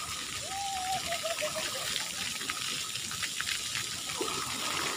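Shallow water running steadily across a tiled splash-pad floor, a continuous wash of water noise with light splashing.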